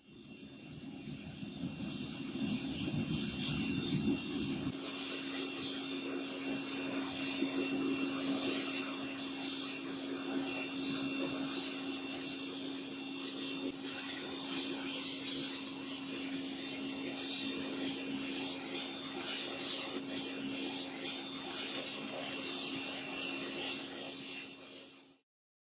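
Continuous abrasive rubbing and scraping from hand restoration work on the antique meat chopper, with a steady low hum joining about five seconds in. It cuts off suddenly near the end.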